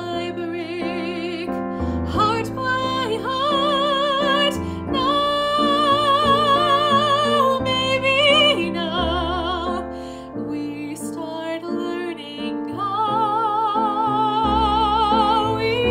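A woman singing in a trained, operatic style over piano accompaniment, holding long notes with a wide vibrato.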